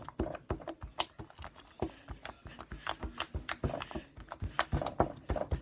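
Fingers jabbing hard and fast into a lump of slime, knocking the wooden table beneath it: a quick, irregular run of taps, several a second.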